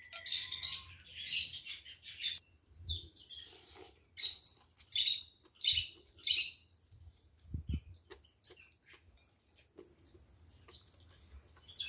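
Eating curry laksa noodles: a run of short slurps of noodles and broth, a pause, then a second run of slurps, followed by quieter chewing and small clicks.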